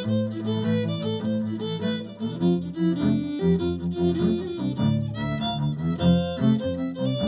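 Fiddle playing a lively jig melody, the notes changing quickly, with lower held notes sounding underneath.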